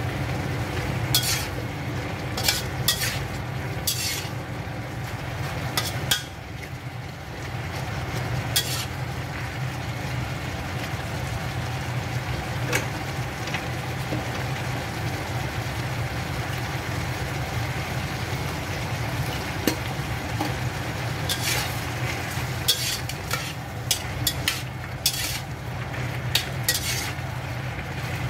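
Shrimp, cucumber and tomato stir-fry sizzling in a pan over a steady low hum, with a slotted spatula scraping and clicking against the pan now and then, most often in the last several seconds.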